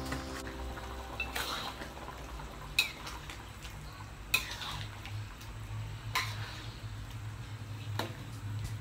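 A long-handled spatula stirring and scraping through chicken in soy-sauce gravy in a wok, knocking against the pan about every second and a half, over the bubbling of the gravy as it simmers.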